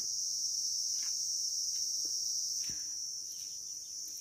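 Steady high-pitched drone of insects chirring, with a few faint soft clicks and knocks.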